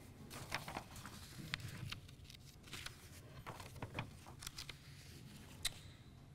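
Sheets of paper being handled and shuffled close to a lectern microphone: faint rustles and scattered small ticks.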